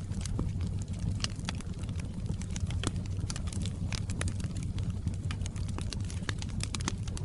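Wood fire crackling in a fireplace: frequent irregular sharp pops and snaps of burning firewood over a steady low rumble of the flames.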